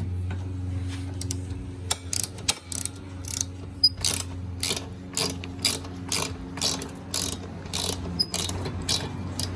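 Ratchet wrench with a 6mm Allen bit backing out an exhaust mounting bolt: the pawl clicks in short bursts about twice a second on each back-swing.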